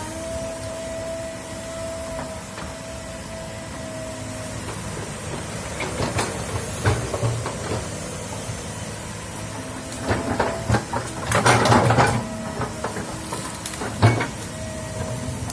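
Hydraulic excavator at work: its diesel engine runs steadily under a whine that comes and goes. Bursts of clanks and knocks come around the middle and again near the end.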